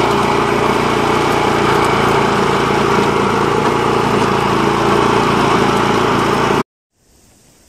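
Walk-behind rotary tiller's small petrol engine running steadily under load as its tines dig into sandy soil. It cuts off abruptly near the end, leaving only faint outdoor background.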